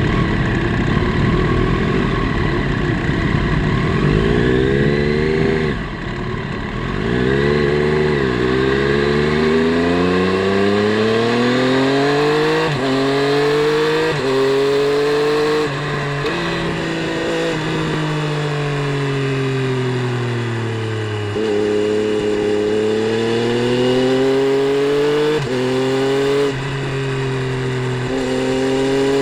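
Triumph Street Triple 765 RS's three-cylinder engine on track, heard from on the bike. It climbs through the revs and drops sharply at each gear change, several times, with a long fall in revs in the middle as it slows.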